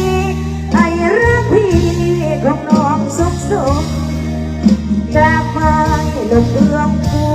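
A woman singing through a stage PA system during a sound check, with amplified instrumental backing underneath her voice.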